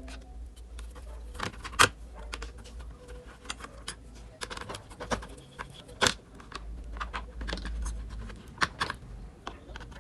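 Irregular clicks, scrapes and light clinks of hands and tools working on the opened induction cooker as its circuit board is taken out, with two sharper knocks about two seconds and six seconds in.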